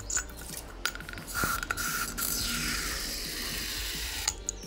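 Aerosol can of oven cleaner spraying foam into a glass jar: a steady hiss of about three seconds that starts about a second and a half in and cuts off abruptly near the end. A few light handling clicks come before it.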